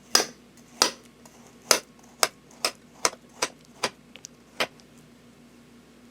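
About nine sharp knocks of a kitchen utensil on a hard surface, unevenly spaced, ending about four and a half seconds in.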